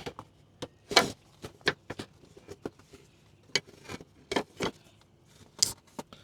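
Irregular sharp clicks and knocks from a car headlight bulb and its wiring connector being wiggled and worked loose by hand, about a dozen over the span.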